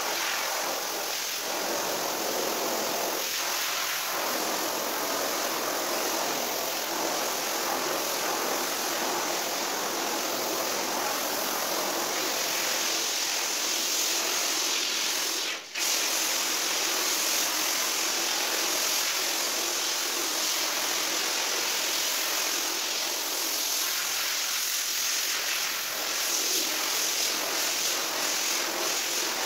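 Pressure washer spray hissing steadily as the jet washes a wet rug on a tiled floor, breaking off for an instant about halfway through.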